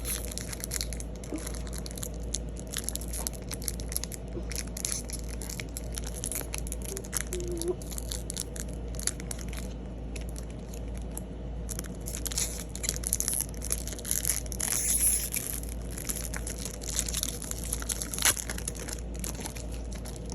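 Foil wrapper of a Pokémon booster pack crinkling and tearing as it is opened, an irregular run of crackles and rustles with one sharper crack near the end.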